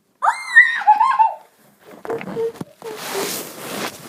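A child's high-pitched squeal, rising then falling, lasting just over a second, followed by faint rustling and handling noise.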